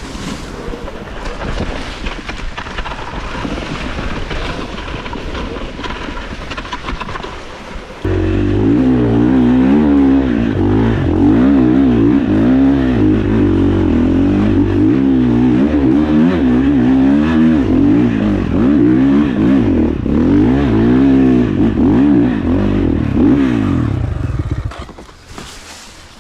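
Dirt bike engine revving hard, its pitch rising and falling over and over as the throttle is worked on a steep off-road climb. It gets suddenly much louder and closer about a third of the way in, and cuts off a couple of seconds before the end.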